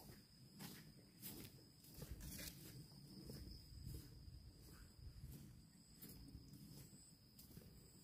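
Faint footsteps and rustling of someone walking a dirt path, irregular soft steps, over a steady high-pitched hum.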